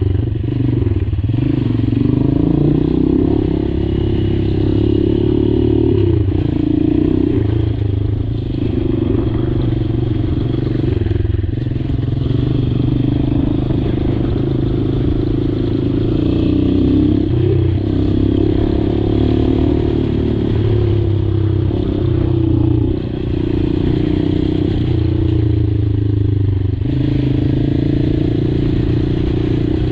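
Honda XR200 single-cylinder four-stroke engine running under way on a trail ride, as heard from the bike itself. The engine note wavers up and down with the throttle and eases off briefly about two-thirds of the way through.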